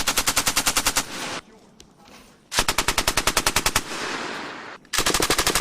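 Belt-fed machine gun firing three short bursts of automatic fire, about a dozen rounds a second, each burst about a second long, with echo rolling on between bursts. The last burst starts near the end.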